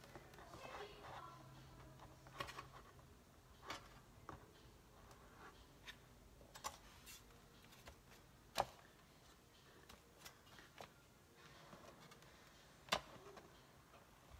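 Scattered light clicks and taps from a hot glue gun being worked along the edge of a metal sign, about ten in all, with a louder click about two-thirds of the way through and another near the end.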